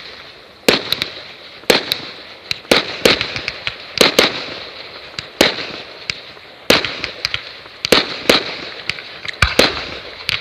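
Fireworks going off: a run of sharp bangs at irregular intervals, about one or two a second, with smaller pops and crackles between them.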